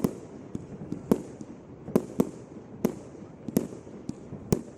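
Fireworks at a display bursting overhead: an irregular string of sharp bangs, about seven loud ones between half a second and a second apart, with smaller pops in between, each trailing off in an echo.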